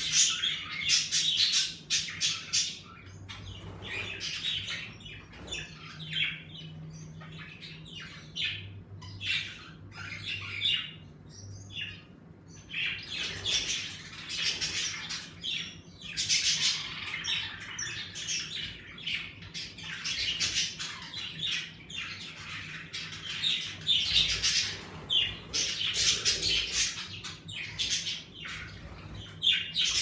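A flock of budgerigars chattering, with many short chirps and squawks coming in busy bursts and a quieter stretch a few seconds in.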